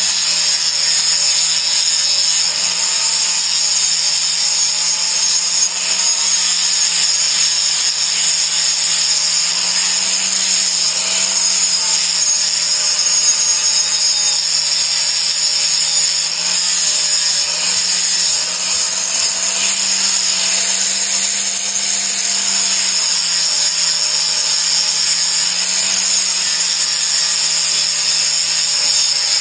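Electric grinder or polisher running steadily against a steel sword blade, grinding off rust. A continuous abrasive hiss sits over the motor hum, which dips and rises slightly in pitch as the pressure on the blade changes.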